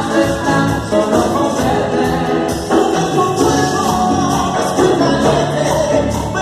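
Music with singing and a steady percussion beat.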